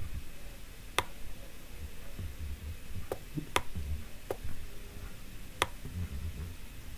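Faint clicks on a laptop, about five sharp ones at uneven intervals, with soft low bumps between them.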